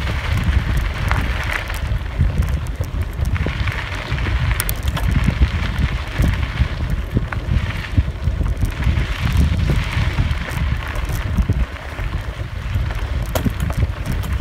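Wind buffeting the microphone of a moving bicycle, over the crunch of knobby tyres rolling on a gravel and dirt trail, with scattered clicks and rattles from the bike.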